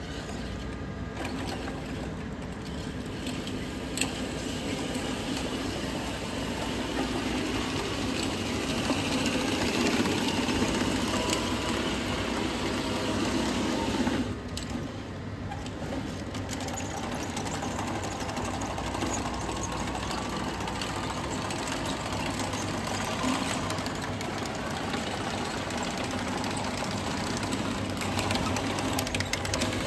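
A 1:6 scale all-metal M26 Pershing model tank driving, its electric drive motors and gearboxes whining and its metal tracks rattling over a concrete floor. There is one sharp click about four seconds in.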